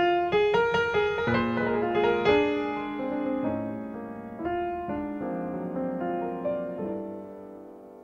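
Piano music: a quick run of notes in the first couple of seconds, then slower held notes and chords that gradually fade.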